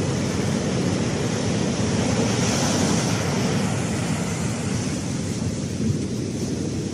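Waves breaking and washing up a sandy beach, with wind on the microphone; the wash swells about two to three seconds in.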